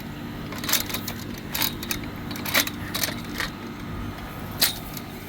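Collapsed metal frame of a pop-up gazebo canopy clinking and knocking as it is handled and packed into its carrying bag, several separate sharp clinks over a steady low hum.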